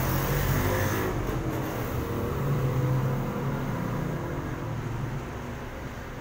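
Street traffic led by a jeepney's engine as it drives past: a low engine hum that is loudest in the first few seconds and eases off after about five seconds.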